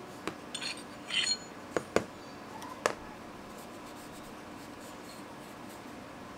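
Handling noise from a Glock 19X Gen5 pistol being field-stripped: a few sharp clicks of the slide and its parts knocking together and being set down, with brief rustling between them in the first three seconds.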